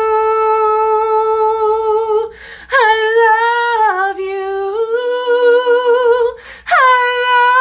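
A woman singing unaccompanied, holding long wordless vowel notes in three phrases, with a short breath between phrases about two and a half and six and a half seconds in.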